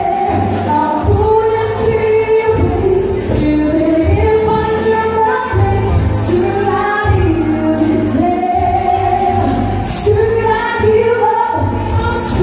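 A woman singing into a microphone over backing music, holding long, gliding notes.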